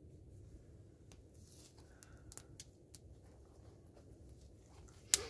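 Dry willow kindling and wood shavings being handled and shifted: scattered light clicks and crackles over a faint low rumble, with one sharper click near the end.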